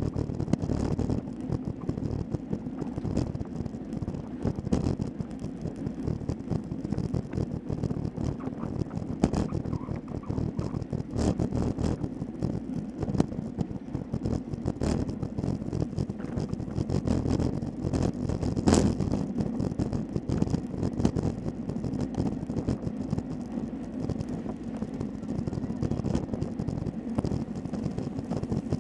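Wind rushing over a bicycle-mounted action camera's microphone while riding at race speed, with road rumble and the mount rattling over bumps in the tarmac. One sharper knock about two-thirds of the way through.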